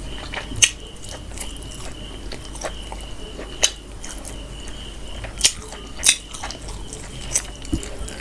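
Close-up eating sounds: chewing of spicy mutton and rice, with about five sharp, wet mouth clicks a second or so apart. A faint steady high-pitched tone runs underneath.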